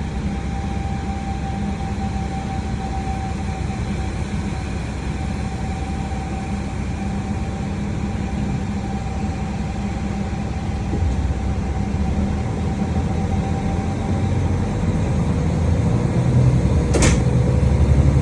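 KiHa 40 series diesel railcar's engine idling with a steady low hum and a thin steady whine, growing louder over the last several seconds as the railcar gets ready to depart. A single sharp click sounds about seventeen seconds in.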